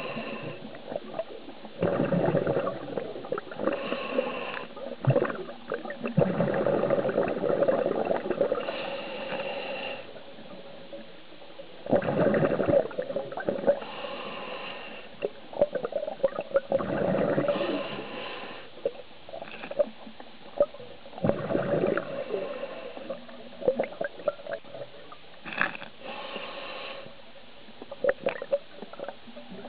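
Scuba diver breathing through a regulator underwater: bubbly bursts of exhalation alternating with quieter inhalations, one breath every few seconds.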